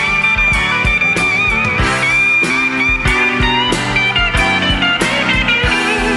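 Live rock band playing an instrumental passage: electric guitar holding a long high note over a steady drum beat and bass.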